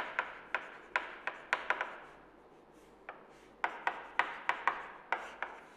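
Chalk writing on a chalkboard: a run of sharp taps and short scratchy strokes, a pause of over a second around the middle, then a second run of strokes.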